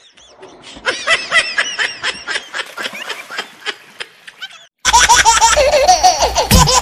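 Bursts of high-pitched, giggly laughter, then loud music cuts in suddenly about five seconds in.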